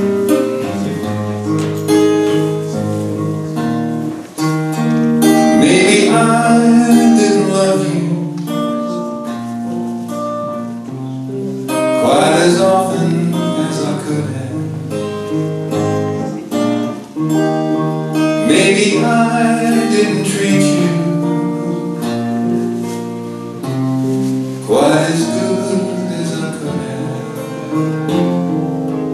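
Live country ballad on a strummed acoustic guitar, with a man singing over it in long phrases.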